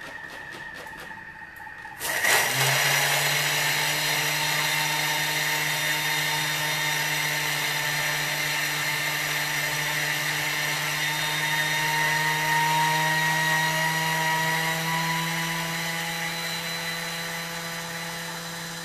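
Thermomix kitchen machine starting up about two seconds in and running steadily at speed 10, its blade grinding lemon peel strips with sugar into lemon zest sugar: a loud whir with a steady whine. A few light clicks come just before it starts.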